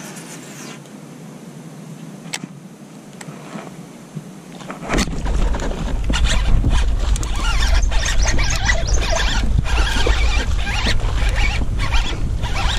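A few light clicks, then from about five seconds in a loud scraping, crackling noise over a low rumble, as a bass takes the frog lure and is reeled in through lily pads and weeds.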